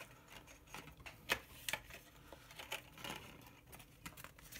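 Light clicks and rustling of hands untying a cardboard instruction tag and its string from an RC crawler's frame, with two sharper clicks about a second and a half in.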